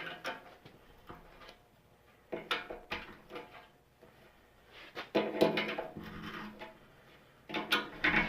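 Metal hand tools clanking and rattling in four short bursts a couple of seconds apart, with some metallic ringing: channel-lock pliers being fetched and worked on the table's threaded bolts.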